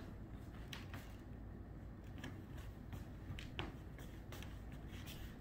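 Quiet room tone with a few faint, scattered light clicks and taps.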